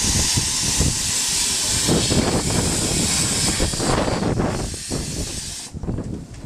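Miniature steam locomotive releasing steam with a loud, steady hiss from low beside its cylinders (the cylinder drain cocks) as it moves off. The hiss stops abruptly near the end, over wind buffeting the microphone.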